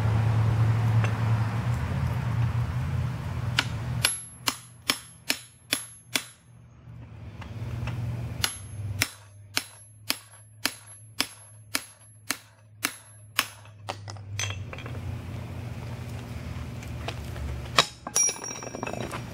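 Hammer blows on a handled hot-cut chisel set on a glowing steel bar over the anvil: two runs of sharp ringing strikes, about two a second, with a pause between them. A steady low hum fills the gaps before and after, and two more strikes come near the end.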